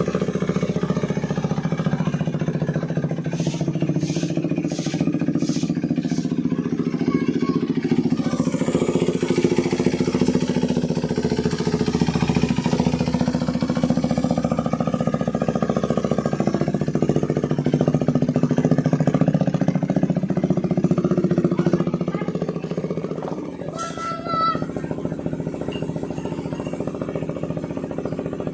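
KTM 390 Duke's single-cylinder engine running steadily through a Remus S-flow full exhaust system. A few sharp clicks come about four to six seconds in, and the sound drops a little about 22 seconds in.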